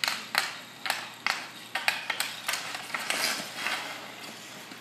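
Hockey sticks clacking and scraping on a concrete driveway during street-hockey stickhandling: a string of sharp, irregular clacks, two or three a second, with a longer scrape near the middle.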